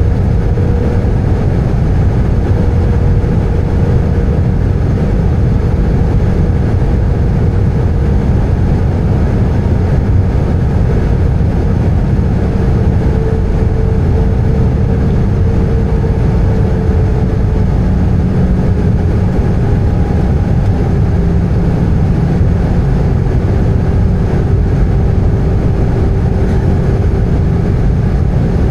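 Steady engine and airflow noise inside the cabin of an Airbus A320 in flight, heavy in the low end, with a faint tone that slowly sinks in pitch.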